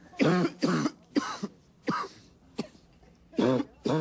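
A man coughing in a fit, a string of short harsh coughs, about seven in four seconds, some with a voiced, hacking edge.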